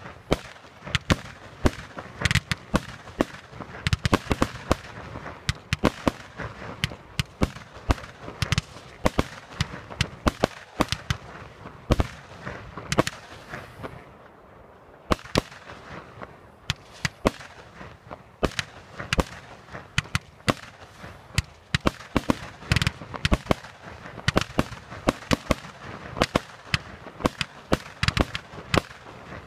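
Aerial fireworks bursting in a rapid barrage, several sharp bangs a second, with a short lull about halfway through.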